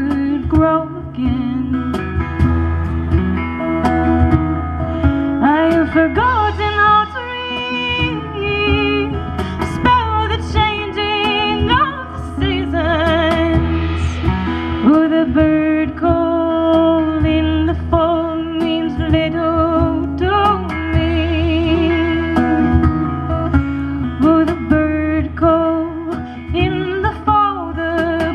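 Live acoustic music: plucked guitar accompaniment under a sliding, wavering melody line, in an instrumental stretch between sung verses.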